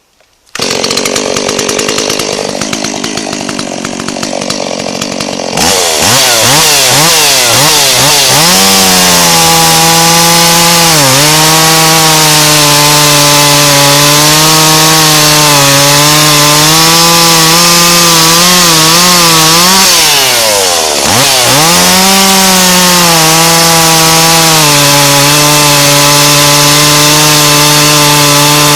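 Stihl MS170 two-stroke chainsaw running with a new, unsharpened 16-inch low-profile chain, cutting through a birch log. It runs more quietly for the first few seconds, then goes to full throttle, and the engine pitch sags twice under the load of the cut before picking back up.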